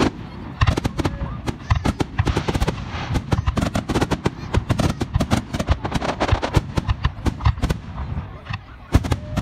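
Aerial fireworks display: a rapid, dense barrage of bursting shells, many bangs and crackles a second, easing briefly near the end before two loud booms.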